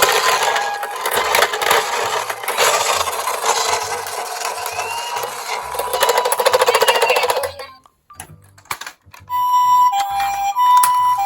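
Toy ambulance minicar's electronic two-tone siren, alternating between a higher and a lower tone about every half second in the Japanese ambulance 'pee-po' pattern. For most of the first seven seconds a loud rasping noise of the toy running all but covers it. After a short lull about eight seconds in, the siren tones ring out clearly.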